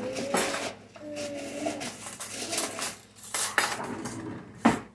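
A metal spoon clinking and clattering against dishes in a handful of sharp knocks, the loudest near the end.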